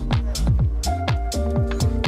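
Electronic background music with a steady kick-drum beat, crisp high ticks between the beats and sustained synth chords.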